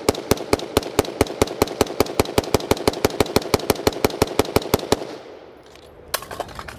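BCM AR15 in 5.56, a direct-impingement rifle, fired in rapid semi-automatic strings of about six shots a second until the string stops about five seconds in, followed by a few fainter clacks. These are the last rounds of a 1,000-round run without cleaning or lubrication, and the rifle cycles with no malfunctions.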